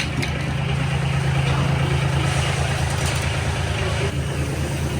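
Farm machinery engine running steadily with an even, low hum.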